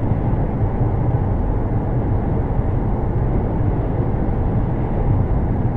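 Steady road and engine noise of a car driving at highway speed, heard from inside the cabin: a constant low rumble with no breaks.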